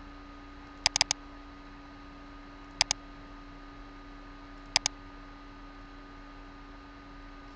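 Computer mouse button clicks over a steady low hum: a quick run of three or four clicks about a second in, then two double-clicks about two seconds apart.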